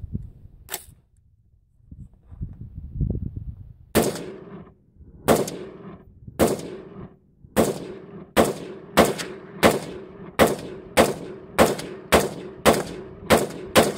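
AR-15 pistol firing single semi-automatic shots: about fourteen, starting about four seconds in, the first few more than a second apart, then a steady string of about one every 0.6 seconds, each shot trailing a short echo. The pistol cycles every round without a stoppage. A single sharp click sounds about a second in, before the shooting.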